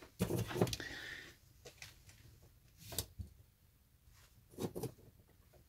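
Faint handling noises on a workbench: a short rustle near the start, then a few scattered light clicks and taps.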